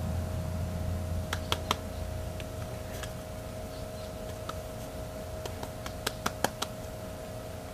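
Scattered light clicks and taps as fingers press and smooth wet clay against the rim of a fired-clay mould. A few come early, one falls midway and a quick run of four comes near the end, over a steady faint hum.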